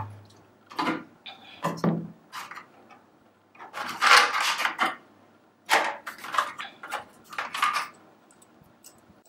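Black plastic UPS casing being pulled apart and handled on a desk: a run of hard plastic knocks and clatters, with a longer scraping stretch about four seconds in.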